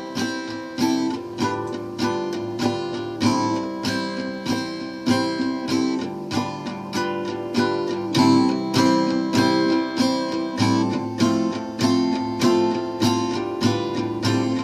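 Acoustic guitar strumming chords in a steady rhythm: the instrumental introduction of a song, with no singing yet.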